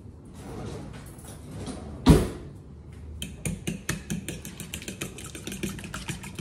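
A fork beating eggs in a small bowl, its tines clicking rapidly against the bowl from about three seconds in. Before that, one loud thump about two seconds in.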